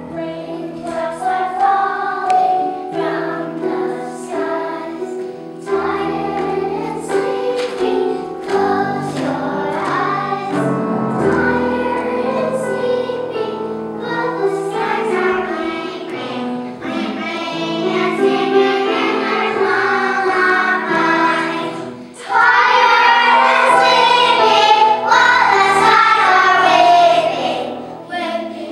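Children's choir singing a song, with a louder stretch for several seconds near the end.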